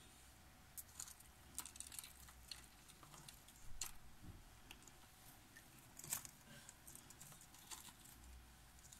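Faint, irregular clicks and scratches: ocellated lizards' claws scrabbling on the terrarium glass and gravel as they climb toward food.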